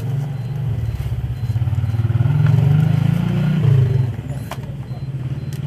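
A motor vehicle engine running, swelling louder through the middle and easing off again, with one sharp click about four and a half seconds in.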